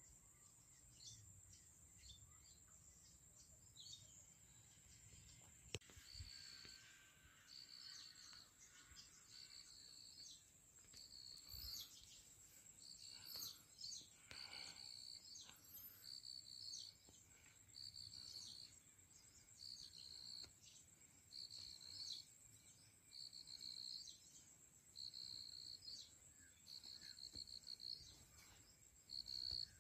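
Faint countryside ambience: insects holding a steady high drone, with a buzzy insect call repeating every second or so from about six seconds in, and a few brief bird chirps.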